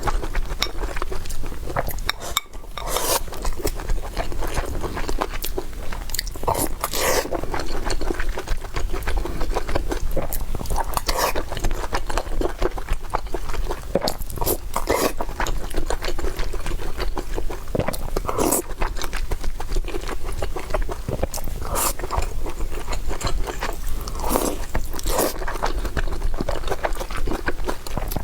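Close-miked chewing and crunching of chicken curry with rice, with short irregular bites and clicks throughout.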